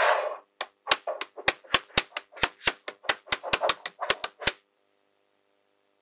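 Small magnetic balls clicking together one after another as they are snapped into place, about four sharp clicks a second with a brief rattle of balls now and then. The clicking stops about four and a half seconds in.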